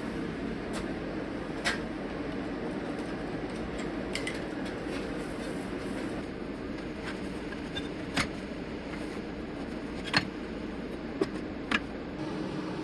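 Scattered sharp metallic clicks and clinks, about half a dozen, from hand tools and parts being handled on a car's rear subframe, over a steady low background hum.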